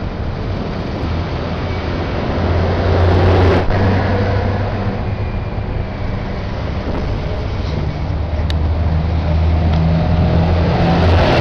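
Heavy six-wheeled military trucks driving past close by, their engines making a steady low drone over the noise of the traffic.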